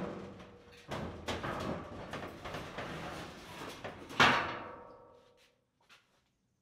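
Heavy metal scraping and grinding as the hoisted compressor is pushed against the steel shelf frame. About four seconds in comes one loud metallic clang that rings out for about a second: the compressor bumps the shelf because it is not lifted high enough to clear it.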